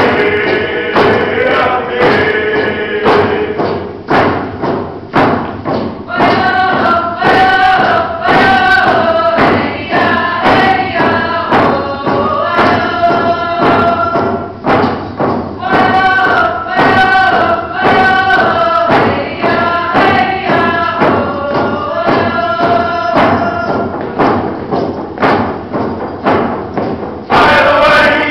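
A group of singers chanting a traditional song together over a steady drum beat, ending in a loud group shout about a second before the end.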